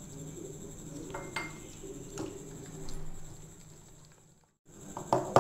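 A hand beating jalebi batter in a stainless-steel bowl as water is poured in from a ceramic mug, with several sharp knocks and clinks against the bowl. The sound cuts out briefly about four and a half seconds in, and the loudest knocks come right at the end.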